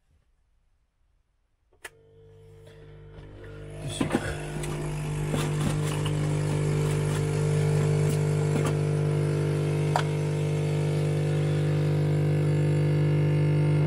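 Espresso coffee machine's pump switching on with a click about two seconds in, then running with a steady buzzing hum that grows louder over the next few seconds as it pushes hot water through the coffee, with a few clicks around four seconds.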